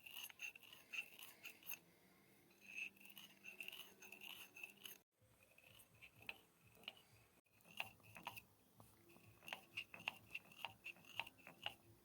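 Faint food-preparation sounds from miniature kitchen utensils: short bouts of rhythmic scraping and many light, sharp taps. The sound drops out abruptly twice, about five and seven and a half seconds in.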